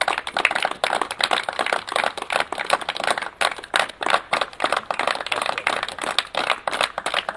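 A group of about a dozen people clapping their hands together: a fast, uneven patter of many overlapping claps that keeps going without a break.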